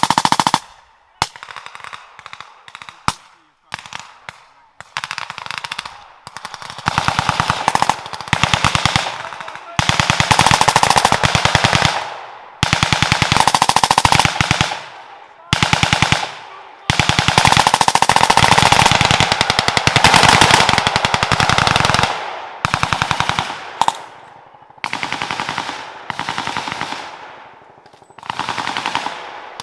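Small-arms automatic fire: scattered single shots and short bursts at first, then long rapid bursts of several seconds each with brief gaps between.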